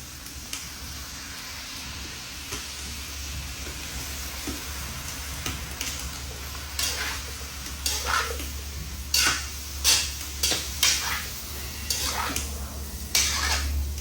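Food frying in oil in a pot on a stove, with a steady sizzle. From about halfway on, a spatula scrapes and knocks against the pan in quick strokes as the food is stirred.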